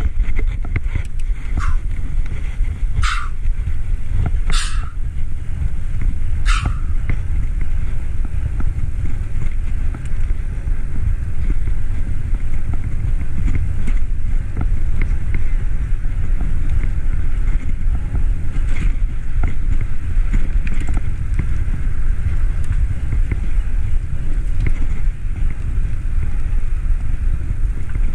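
Wind buffeting the microphone of a camera on a moving bicycle, a steady low rumble throughout, with three short sharp clicks in the first seven seconds or so.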